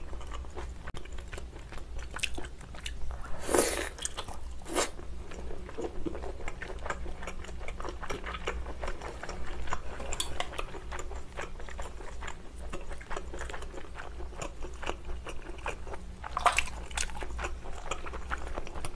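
Close-miked biting and chewing of a whole cooked abalone: a steady run of small wet mouth clicks, with a few louder bites, about three and a half and five seconds in and again near the end.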